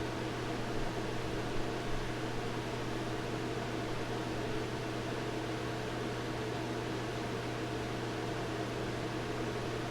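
A machine running with a steady, unchanging hum and an even hiss.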